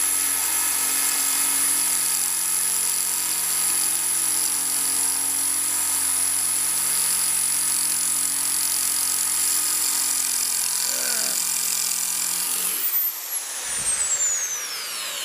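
Electric hand drill running steadily under load, boring out a stripped axle bolt in an inline skate frame, with a high whine. About 13 seconds in the motor is let off and its whine falls away as it spins down.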